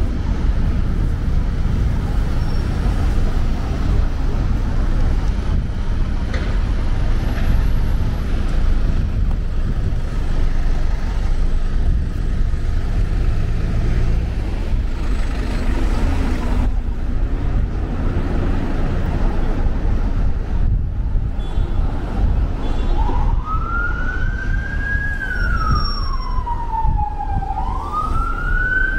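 Steady rumble of city road traffic, with double-decker buses and cars passing close. About two-thirds of the way through, an emergency-vehicle siren starts up, wailing slowly up and down.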